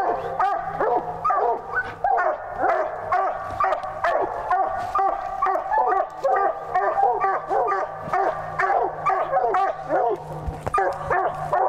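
Coonhounds barking at the base of a tree, several dogs at once in quick, overlapping barks, about three or four a second: the tree bark of hounds that have a raccoon treed.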